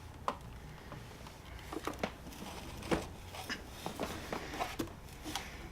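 Scattered light clicks and taps of small items and packaging being handled and set down, over a faint low room hum.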